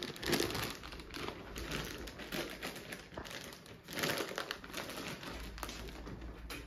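Plastic bag crinkling and rustling as it is handled, in irregular crackles, loudest about four seconds in.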